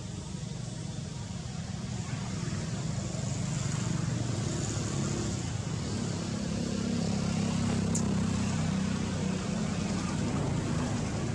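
A motor vehicle's engine rumbling in the background over outdoor noise, growing louder through the middle and easing slightly near the end.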